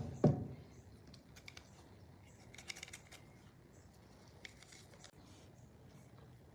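A low thump right at the start, then scattered faint, sharp clicks and light taps over a quiet low hum.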